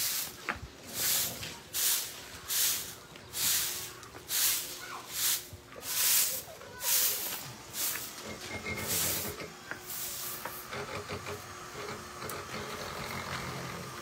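A sprayer hissing in short, evenly spaced bursts, a little more than one a second, stopping about ten seconds in.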